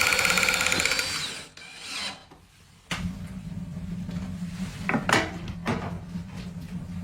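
A small motor whirring for about a second and a half, then cutting out; after a pause, a low steady hum with a few short scraping strokes.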